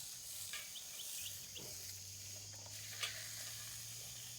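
Faint outdoor ambience dominated by a steady, high-pitched insect drone, with a few short chirps about a second in and a single click about three seconds in.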